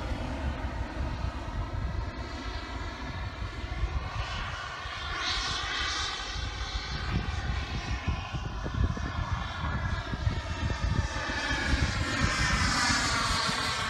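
Engine whine of a radio-controlled Super Galeb G4 scale jet model flying overhead, its pitch rising and falling several times as the model passes and turns.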